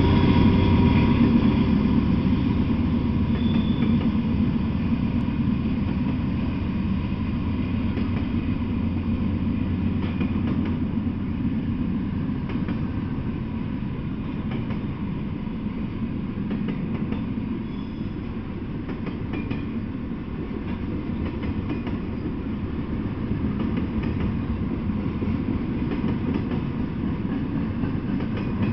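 Double-stack intermodal freight train passing at speed: a steady rumble of wheels on rail with some clickety-clack, loudest in the first few seconds as a diesel locomotive goes by, then settling into the even roll of the well cars.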